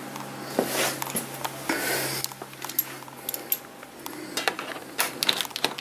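Handling noise: rustling and a scatter of light knocks and clicks as objects are moved around, with a cluster of clicks near the end. A low steady hum fades out about two seconds in.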